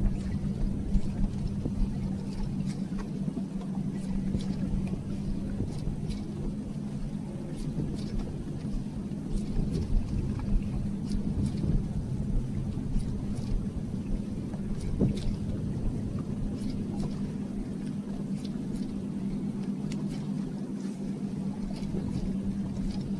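Electric trolling motor running with a steady hum over a low rumble of wind and water, with scattered faint ticks.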